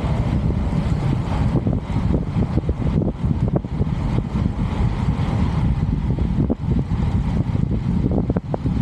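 Wind buffeting the microphone while riding along a road: a loud, dense low rumble that wavers constantly, with scattered faint clicks.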